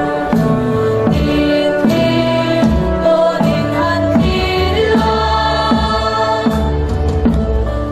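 Mixed choir of boys and girls singing together in long held notes that change step by step, picked up through stage microphones.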